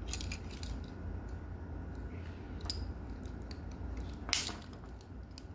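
Small metal clicks from a Zippo SureFire multi-tool being handled, as its flathead screwdriver is readied to open the flint compartment, with one sharper click about four seconds in over a low steady hum.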